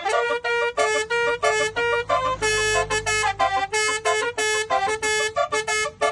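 12-trumpet MSK Romeo 2.0 telolet air horn, running on 90 PSI compressed air, playing a fast tune of short pitched blasts, about three or four a second, with one longer held note a little past halfway.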